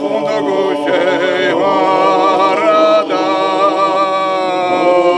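Male choir singing a cappella in several parts, holding long notes together and settling onto a sustained chord near the end.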